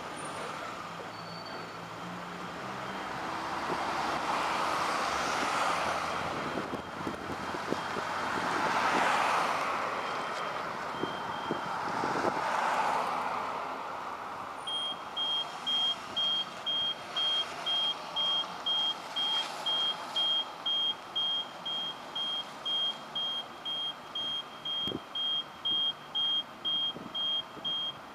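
Road and traffic noise heard from inside a city bus, swelling and fading as vehicles pass. About halfway through, a steady electronic beeping starts, about one and a half short high beeps a second, and keeps going.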